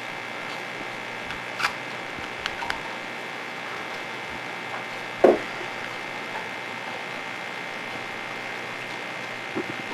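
Steady background hum and hiss, broken by a few faint clicks and one short, louder sound about five seconds in.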